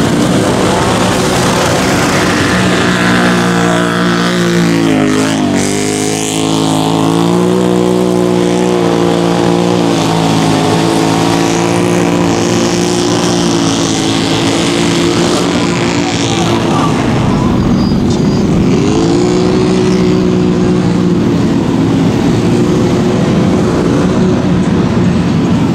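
ATV engines running hard at high revs through deep mud. The pitch drops and climbs back about five seconds in and again a little past halfway.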